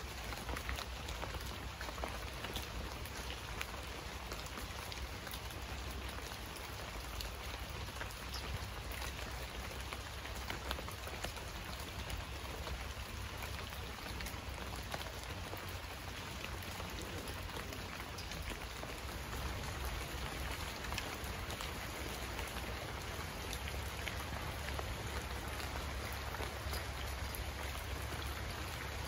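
Heavy rain falling steadily: an even hiss with many scattered sharp drop ticks and a steady low rumble underneath.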